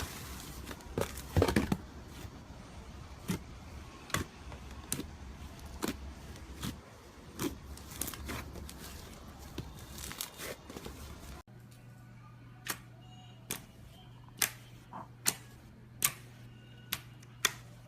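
Slime being squished and poked, giving repeated sharp clicks and crackly pops. After an abrupt cut about two-thirds in, the pops come more sparsely over a steady low hum.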